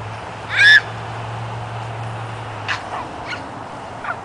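A young boy's short, high-pitched shriek about half a second in, then a few faint short cries, as he is play-wrestled to the ground and kicked in the knee.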